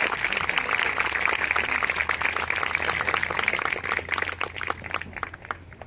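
Audience applause, many hands clapping, thinning out to scattered claps and fading away near the end.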